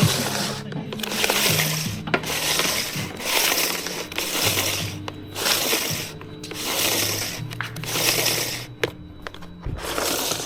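Rasping strokes of a metal blade being sharpened, about one a second with short pauses between, over background music.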